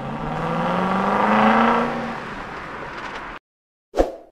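Car engine revving up, its pitch rising for about a second and a half and then falling back before cutting off suddenly a little over three seconds in. A short thump follows near the end.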